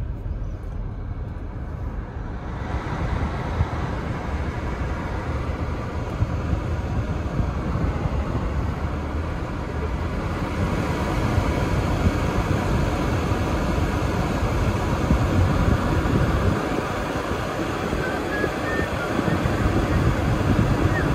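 Steady rushing noise inside a moving car's cabin. It steps up in loudness about two and a half seconds in, and turns brighter and hissier again at about ten seconds.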